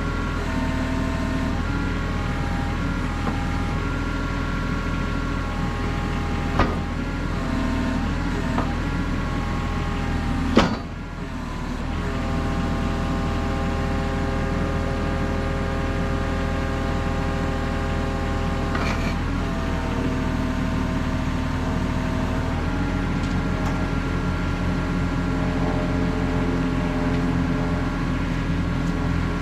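Kubota KX91-3 mini excavator's diesel engine running steadily, its tone shifting now and then. Two sharp knocks land about six and a half and ten and a half seconds in, the second the louder.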